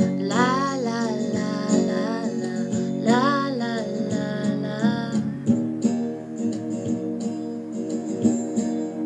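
Acoustic guitar strummed steadily, with a female voice singing two long, wavering phrases in the first half; the guitar carries on alone after that.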